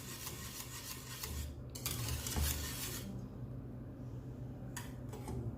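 A spoon scraping and clinking against cookware for about three seconds, then fainter, with one more short clink near the end.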